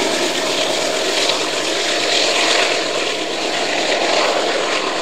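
Steady noise of a loaded coal train running away down the track, wheels on rail and the rear diesel locomotive receding, fading only slightly.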